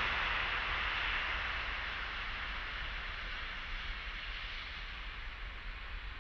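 Jet engine noise from an Antonov An-124-100's four turbofans during the landing roll-out, a steady hiss that fades as the aircraft moves away.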